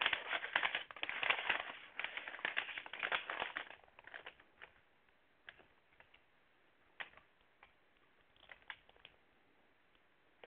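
Crumpled packing paper crinkling and rustling as it is unfolded by hand, dense for about the first four seconds. After that, only a few scattered light taps.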